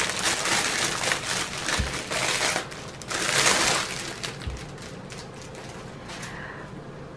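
Clear plastic bag crinkling and crackling as a storage case is pulled out of it, loudest in the first second and again around three seconds in, dying down after about four seconds. Two dull thuds sound under the crinkling.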